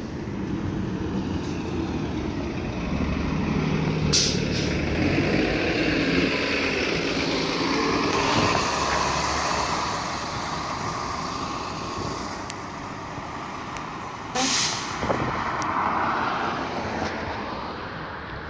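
City transit bus engine running as the bus pulls away and drives off. Two short hisses of air from its air brakes come about four seconds in and again about fourteen seconds in.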